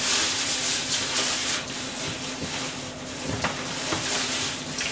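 Steady sizzling and steaming hiss from pans on a hot stove, over a low, steady hum.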